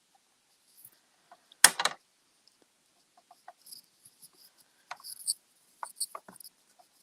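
Light taps and clicks of rubber stamping tools being handled on a craft desk, with one louder plastic clunk about one and a half seconds in.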